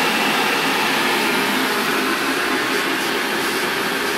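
Stainless-steel electric kettle heating water: a loud, steady rushing noise.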